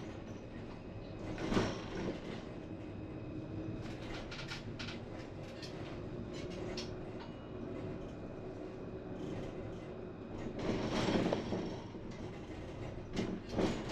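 Tram running on rails: steady rolling noise with a faint steady hum, swelling louder briefly about a second and a half in and again for about a second around eleven seconds in.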